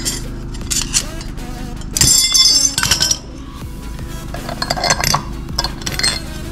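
Tin snips cutting through a thin perforated steel plate, with the cut metal pieces clinking and jangling on the concrete floor, the loudest jangle about two seconds in. Background music runs underneath.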